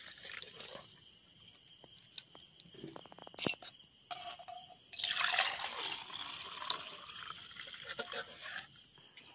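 Milky white liquid poured from a steel bowl into a steel tumbler: a splashing trickle lasting a few seconds from about five seconds in. Before it come a couple of sharp metal clinks, the loudest about three and a half seconds in, and crickets trill steadily throughout.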